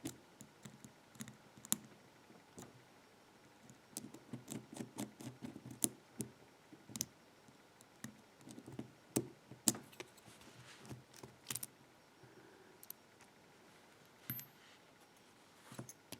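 Small metal parts of a Kryptonite padlock clicking and clinking as it is taken apart by hand, in irregular sharp clicks with short clusters of light rattling.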